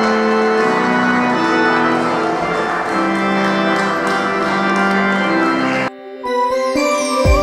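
Church organ playing held chords that change note every second or so, with the room's echo and the rustle of the congregation under it. About six seconds in it cuts off suddenly and cleaner keyboard music takes over.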